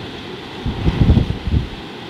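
Wind gusting on the microphone: an irregular low rumble lasting about a second in the middle, over a steady background hiss.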